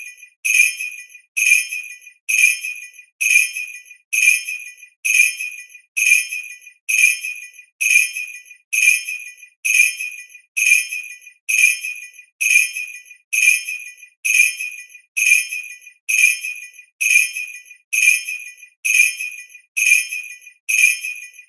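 A sleigh bell giving one quick ring at a time, repeated at an even pace of a little over one ring a second. Each ring is a bright, high jingle that dies away before the next.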